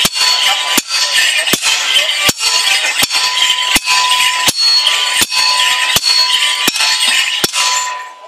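Morris dance stick clashes and drum beats striking in time, about once every three-quarters of a second, over jingling and held instrumental notes. All of it dies away near the end as the dance finishes.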